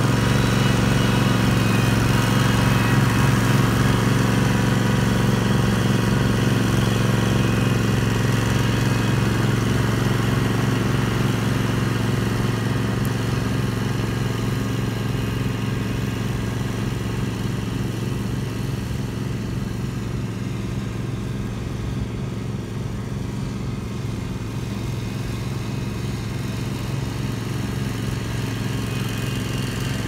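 Engine of a Spider remote-controlled slope mower running steadily at an even pitch as it mows a grass bank.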